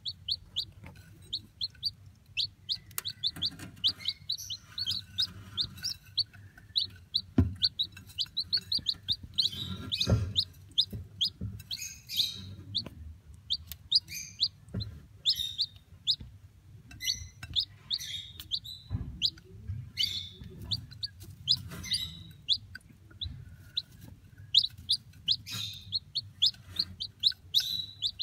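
Newly hatched chicks peeping: quick runs of short, high chirps, several a second, growing louder at times. A few dull knocks sound under the peeping.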